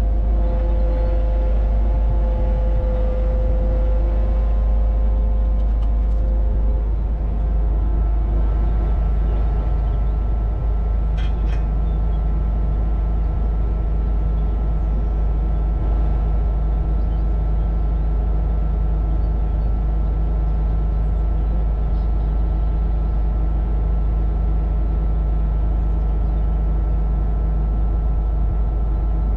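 Kubota KX61-2A mini excavator's diesel engine running steadily under a low rumble, with a steady whine that shifts to a higher pitch about seven seconds in.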